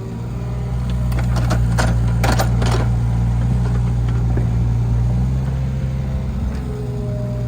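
Tractor engine running steadily, growing louder about a second in, with a few sharp clanks or knocks between about one and three seconds in.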